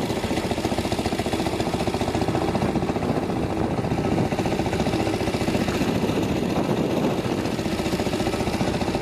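A small boat's engine running at a steady speed, with a fast, even pulse.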